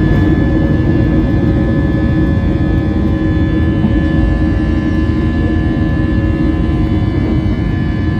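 The IAE V2500 turbofan engines of an Airbus A320, heard from inside the cabin, running at a steady high power. The loud, even rushing noise carries several constant whining tones.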